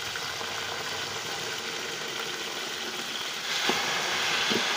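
Garlic water poured into hot ghee and browned onions, sizzling and bubbling hard in the pot. The sizzle grows louder about three and a half seconds in.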